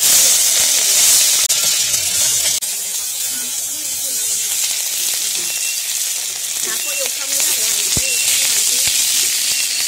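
Small fish dropped into hot oil in a large wok, bursting into a loud sizzle the instant they go in and frying with a steady, dense hiss.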